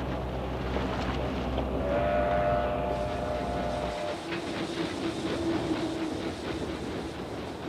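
Train running on rails with a steady low rumble and wheels clacking over the rail joints. A long steady tone sounds about two seconds in, then a lower one from about four seconds.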